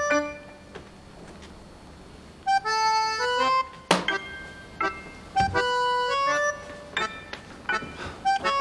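Playful background music on a free-reed instrument, short bouncing notes stepping up and down, coming in about two and a half seconds in after a quiet start. A sharp click about four seconds in.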